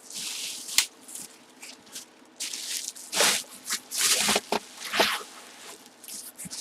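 Packaging rustling and crinkling in several bursts as it is handled, with a sharp click a little under a second in.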